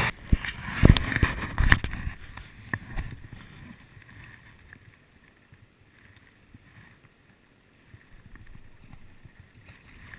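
Knocks and rubbing on a camera housing as it is handled and set in place, for about the first three seconds. After that comes the faint, steady rush of a fast-flowing river and light wind on the microphone.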